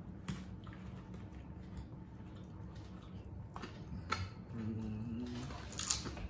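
Crisp corn tostadas being broken by hand and bitten: scattered sharp crunches and clicks, the loudest near the end. A brief hummed voice comes shortly before the last crunches.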